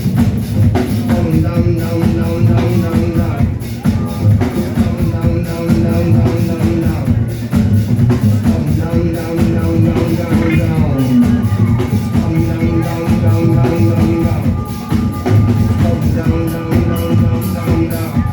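Rock band playing an instrumental passage: a busy drum-kit and bass groove under a repeating sustained melodic figure, with a sliding note about ten seconds in.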